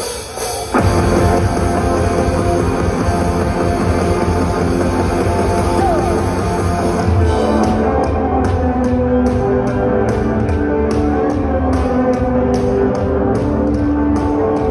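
Rock band playing live through a loud PA. The full band comes in sharply about a second in, and a steady hi-hat beat joins around eight seconds in.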